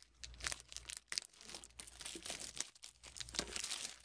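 Cellophane shrink-wrap crinkling and tearing as it is pulled off a Yu-Gi-Oh! collector's tin, in a quick, irregular run of crackles.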